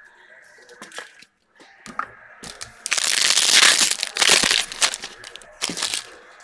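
Clear plastic wrapper of a football trading-card pack being torn open and crumpled: a loud crinkling rustle for about two seconds in the middle, with a few sharp clicks and taps before and after.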